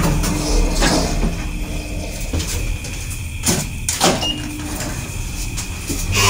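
Elevator car doors sliding, with several short whooshing movements over a steady low hum. A brief high beep comes about four seconds in as a floor button is pressed.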